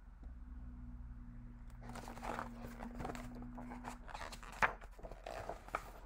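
Pages of a picture book being handled and turned: faint paper rustling and small knocks starting about two seconds in, with one sharper snap of a page about four and a half seconds in.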